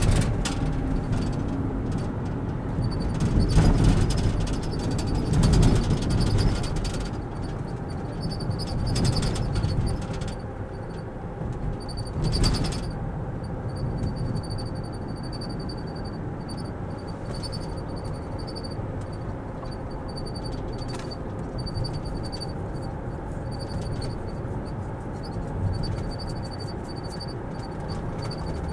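Road noise inside a moving car's cabin: a steady low rumble of tyres and engine, louder for a few seconds near the start and once more briefly around the middle.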